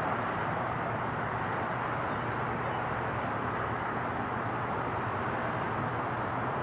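Steady distant roar of a Boeing 767's jet engines on approach, holding level without rising or falling.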